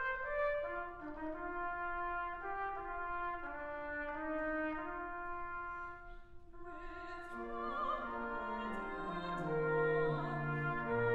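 Brass ensemble of two trumpets and two trombones playing sustained chords that change about twice a second. About six seconds in there is a brief break, and the music resumes fuller, with lower notes added.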